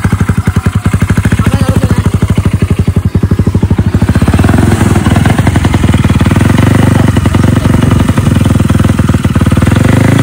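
Drag-style moped engine running through a racing exhaust. It idles with loud, even pulses, then is held at higher revs from about four seconds in. The tuner puts its poor running down to a badly set carburettor.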